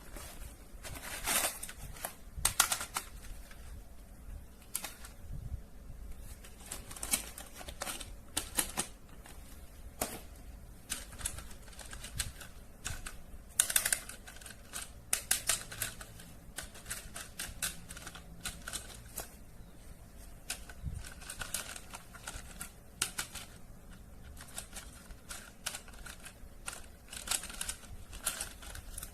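Irregular clicks, taps and light crinkles of plastic toys and their packaging being handled and unboxed.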